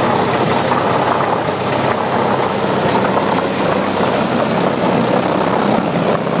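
A car audio system of eight Audiobahn XFL subwoofers on four Audiobahn 1100 amplifiers plays a sustained bass tone at competition level during a metered SPL run. It is heard as a steady, loud low drone with a dense buzz over it.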